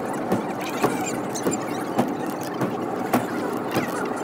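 Eizan Cable funicular car climbing its track, heard from inside the cabin: a steady rattling run with short clicks about twice a second, sped up fourfold.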